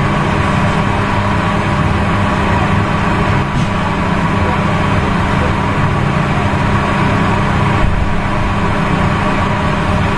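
Steady low mechanical hum and rumble, with a constant tone.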